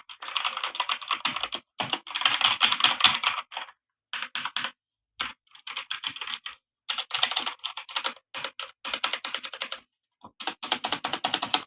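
Redgear Shadow Blade MK853 mechanical keyboard with clicky blue switches being typed on rapidly: fast runs of sharp key clicks in about nine bursts, each broken off by a short pause.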